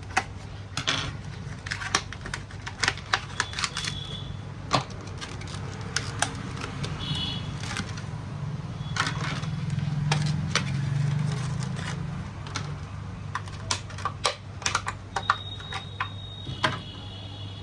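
Scattered sharp clicks and crackles of a new SSD being taken out of its plastic packaging and handled, with a few short high squeaks, over a steady low hum.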